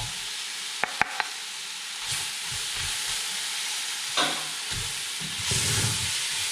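Onions and ground spices sizzling in oil in a large stainless steel pot, with a steady hiss. Three light clicks come about a second in. From about two seconds on, a wooden spoon scrapes and stirs through the mixture, loudest near the end.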